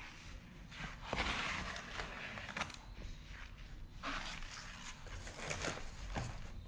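Cardboard packaging being handled and pulled away by gloved hands: irregular rustling and scraping of card, with a few light taps and knocks as the reel box is moved.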